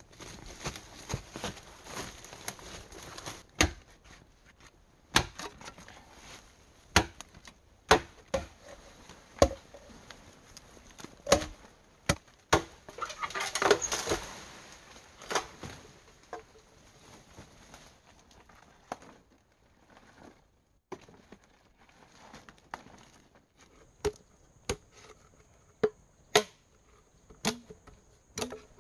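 Dry leaves and twigs rustling and snapping as someone pushes and steps through forest undergrowth, a busier burst of crunching leaf litter about halfway. Near the end come sparser sharp knocks of a machete chopping into green bamboo. A faint steady high tone runs underneath.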